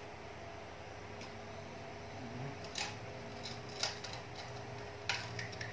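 A few short clicks and rustles of a cardboard box and packaging being handled, over a steady low background hum.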